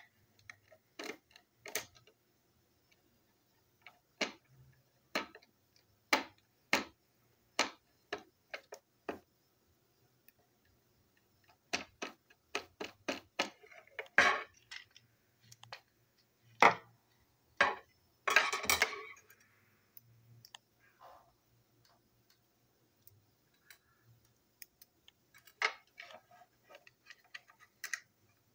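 Irregular sharp clicks and taps of a screwdriver and a small plastic toy diesel locomotive being handled and fitted back together, with a longer scraping rattle about two-thirds of the way through.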